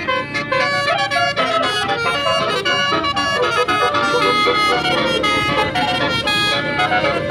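Bus telolet horn of the Basuri type playing a tune: several horn notes sound at once and change pitch in quick steps, over a low rumble.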